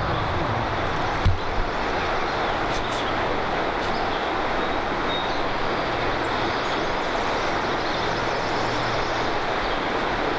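Steady rush of flowing river water around a wading angler, an even hiss with a low rumble underneath and a couple of faint knocks.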